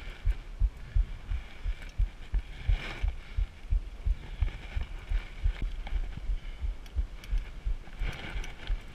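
Wind buffeting the microphone of an action camera on a moving mountain bike, an irregular run of low thumps several times a second. A fainter high hiss swells about three seconds in and again near the end.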